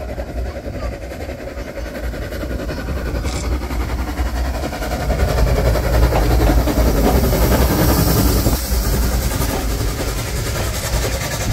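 Steam tram engine running past with its train of coaches, the sound building as it draws level about six seconds in, then the coaches rolling by.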